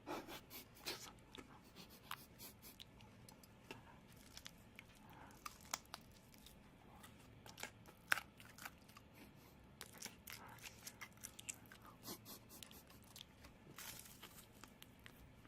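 Close-miked ASMR trigger sounds: a run of small, irregular crackles, crunches and clicks, with one sharper click about eight seconds in.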